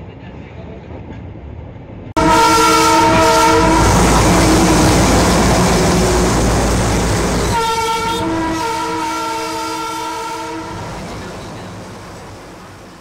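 Darjeeling Himalayan Railway train's horn blowing two long blasts over the rumble of the narrow-gauge train running. The first starts suddenly about two seconds in, the second comes about five seconds later, and the sound fades out near the end.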